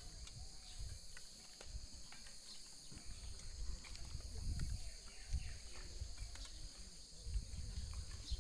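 Steady high-pitched chorus of insects, likely crickets, running continuously, with intermittent low rumbles of wind on the microphone and a few faint clicks.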